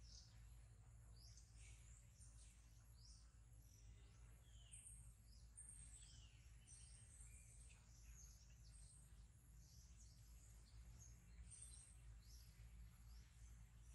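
Faint, scattered bird chirps, many short falling notes, over a low steady hum.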